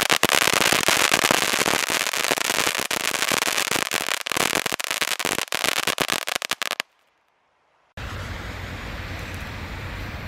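Crackling firework with a red and green crackle effect: a dense, rapid crackle of many small pops that cuts off abruptly about seven seconds in. After a brief gap, a steady low outdoor rumble, like wind on the microphone, follows.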